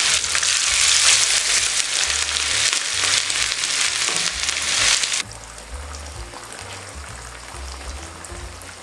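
Chapli kababs shallow-frying in hot oil in a flat pan, a dense crackling sizzle. About five seconds in it drops abruptly to a quieter sizzle.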